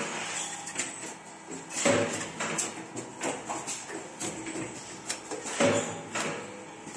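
Automatic CNC wire bending and butt welding machine running its cycle: irregular mechanical clacks and knocks from its pneumatic bending and clamping actions. Two louder bursts, about two seconds in and again near the end, the later one as the wire ends are butt-welded in a spray of sparks.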